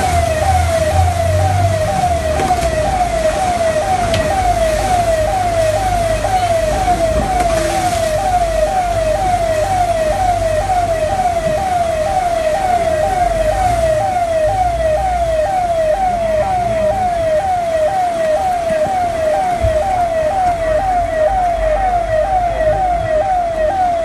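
Electronic siren-like alarm tone, a quick downward sweep repeated about twice a second without change, over a low rumble.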